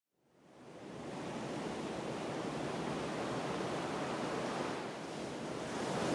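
A steady rushing noise with no pitch, fading in during the first second and swelling a little near the end, as an intro effect on a song's recording.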